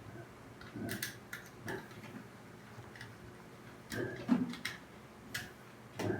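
Scattered light clicks and knocks from hands and tools handling small parts while wiring a water heater's thermostat, about eight in all, coming in two loose clusters.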